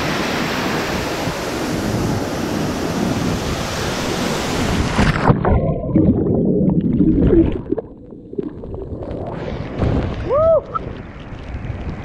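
Waterfall rushing and splashing close to the microphone. About five seconds in, the camera goes underwater: the sound turns suddenly muffled, with bubbling and gurgling. The rushing water comes back around ten seconds, with a short rising-and-falling whistle-like note.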